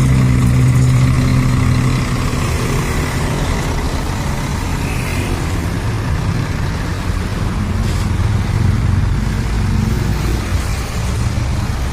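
Scania K410iB coach's 13-litre six-cylinder diesel engine running as the bus pulls in. A steady engine tone for about the first two seconds gives way to a lower, rougher rumble that swells again about eight seconds in.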